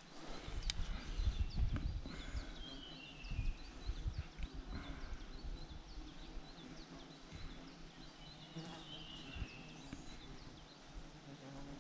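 A small songbird singing a short descending trill twice, about six seconds apart, among scattered short high chirps. Low rustling and thumps come in the first few seconds.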